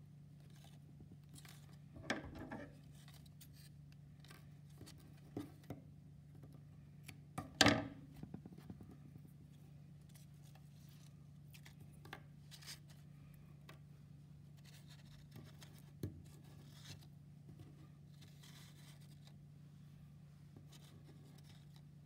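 Small handling sounds from threading string through folded paper birds: scattered light rustles and clicks, the loudest a little under eight seconds in, over a steady low hum.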